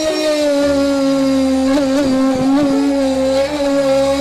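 Background music: a held, slightly wavering lead tone with a bass line underneath that changes note every second or so.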